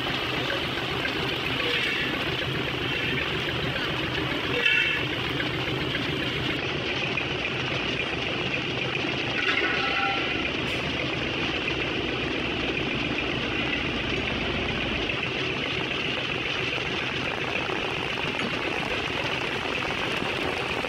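Heavy rain pouring down as a steady hiss, with a low truck engine idling underneath for most of it. Brief distant voices call out a few times.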